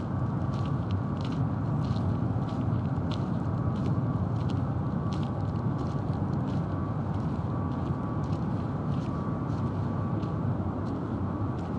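Steady low rumble of harbour ambience, with a faint steady whine and scattered light ticks throughout.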